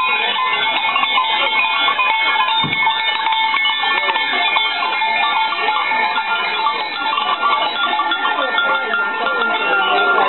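A herd of Valais Blackneck goats passing close by, with many bells jangling together at many pitches and goats bleating.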